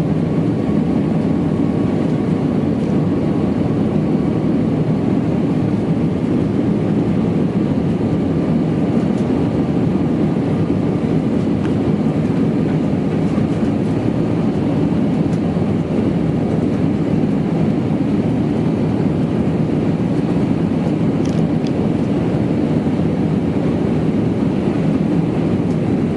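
Airbus A320 jet airliner's engines during takeoff: a loud, steady rumble that holds unchanged throughout.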